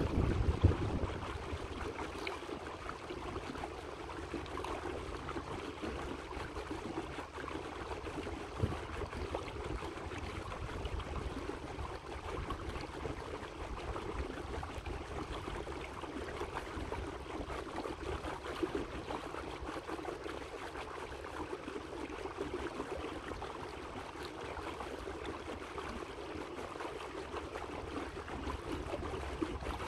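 Water lapping and splashing steadily against the hull of a slow-moving electric boat, with no motor noise standing out. A brief low rumble comes at the very start.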